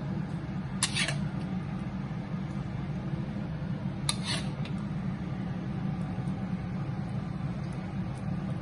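Two light clinks of a utensil against a metal pan, about a second in and about four seconds in, over a steady low hum.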